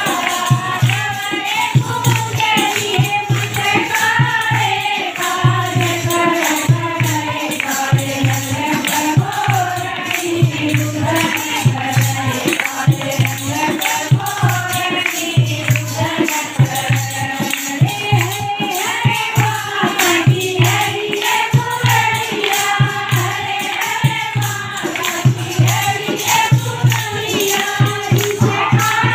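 A group of women singing a Haryanvi devotional folk song (bhajan) together, with hand-clapping and percussion keeping a steady beat.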